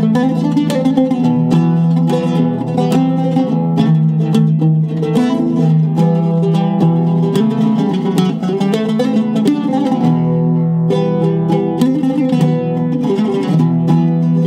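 Solo oud, cedar soundboard and maple-and-wenge bowl, strung with Kröschner strings, played with a plectrum: quick runs of plucked notes over a low note ringing underneath.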